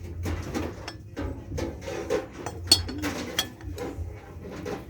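Glassware and dishes clinking and knocking as they are picked up and set down on a shelf, with one sharp, bright clink a little past the middle.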